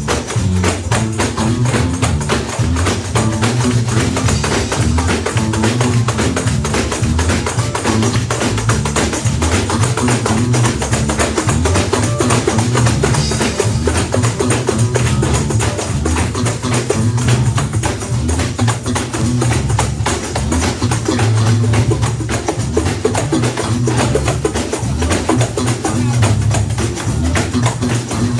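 Live gospel church music: a band with drums and bass under a fast, steady tambourine rhythm, played loud in a small hall.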